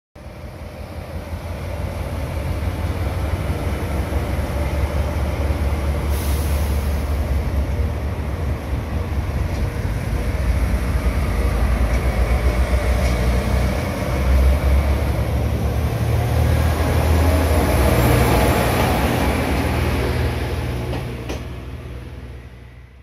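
Diesel railcar running through the station, its engine droning steadily and its wheels rolling on the rails. It grows louder as it passes and fades away near the end.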